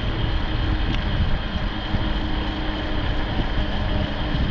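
Wind rushing and buffeting over the microphone of a rider on a moving electric bike, a steady low rumble. A few faint steady tones run underneath.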